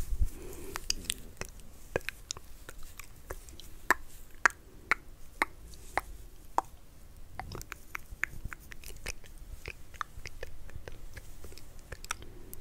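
Close-miked ASMR mouth sounds: irregular wet clicks and smacks, a few a second, with no words.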